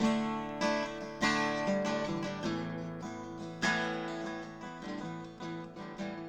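Acoustic guitar music, strummed chords fading out.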